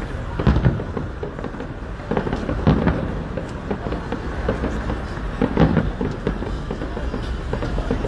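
Fireworks display going off in quick succession: a steady run of booms and crackles over a constant rumble, with louder bursts about half a second in, near 3 seconds and near 6 seconds.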